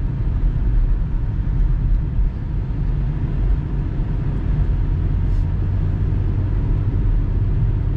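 Steady low rumble of an all-wheel-drive car driving, heard inside the cabin: engine and tyres on a snow-covered road.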